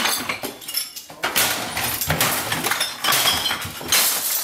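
Glass and hard objects crashing and clinking in an irregular string of impacts as things are smashed.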